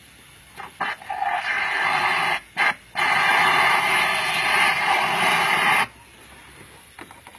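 Pressurised spray from a pump hose hissing loudly while the car's brake fluid system is flushed with water. The hiss starts about a second in, breaks off briefly twice near the middle, and cuts off suddenly about six seconds in.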